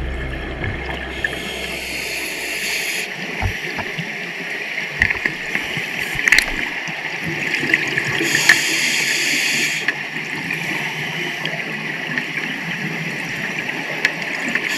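Underwater sound of a scuba diver's exhaled air bubbles gurgling up in two bursts several seconds apart, over a steady water hiss with scattered small clicks.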